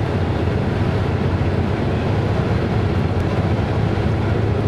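Steady low rumble of a moving road vehicle's engine and tyres, heard from inside the vehicle.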